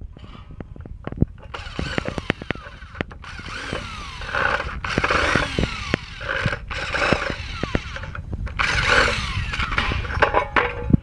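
Power screwdriver running in short bursts, about five, each a second or so long, as it backs out the cross-head screws from the plastic base of an electric takoyaki maker. Sharp clicks and rattles of screws and plastic come between the bursts.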